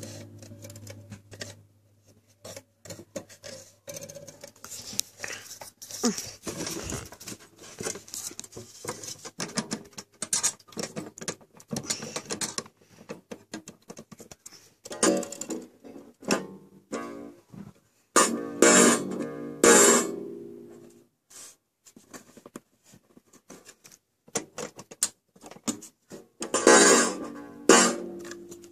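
Old wooden wall clock handled while its hands are turned by finger: clicking and rubbing against the case and movement. The clock's striking gong rings out in short pitched notes, once about halfway, a quick run of about four a few seconds later and two more near the end.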